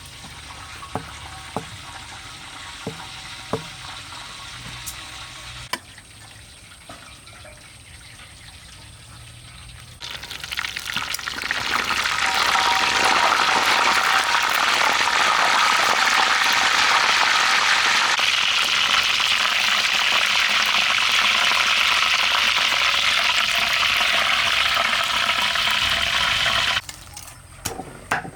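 Food frying in hot oil in a pan: a low sizzle with a few sharp utensil clicks, then a loud, steady sizzle that builds after about ten seconds and cuts off suddenly near the end.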